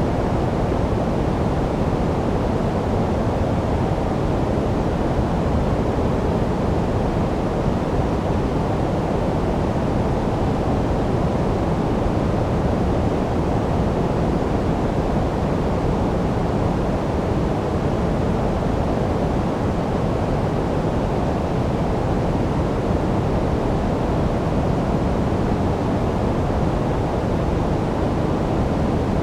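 Steady generated sleep noise: a constant, even rushing hiss that never changes, weighted toward the low end and dull rather than bright.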